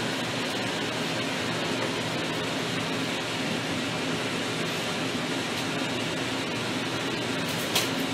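Steady, even hiss throughout, with one brief, sharp high click near the end.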